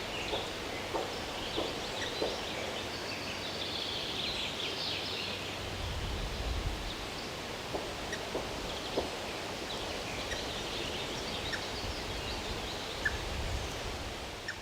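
Woodland birds chattering and calling over a steady background hiss, with scattered short ticks and a brief low rumble about six seconds in and again near the end.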